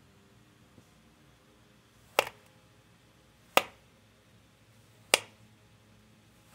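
A kitchen knife slices down through moulded play sand in four crisp, sharp strokes, about a second and a half apart.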